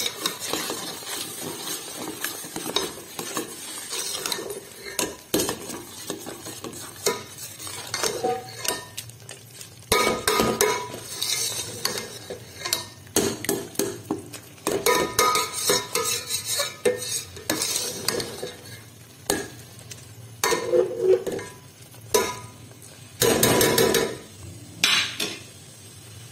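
Metal spoon stirring thick carrot halwa in a stainless steel pot, scraping and clinking against the pot in bouts with short pauses, a few clinks ringing louder.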